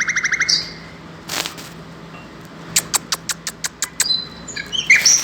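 Young hand-reared lark giving a rapid buzzy trill at the start, then short high chirps near the end. Around the middle there is a quick run of about eight sharp taps.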